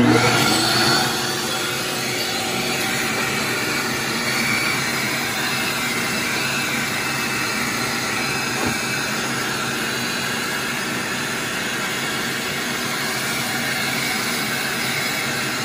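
Shop vacuum switched on and then running steadily, its hose nozzle sucking along the air handler's condensate drain pan under the evaporator coil.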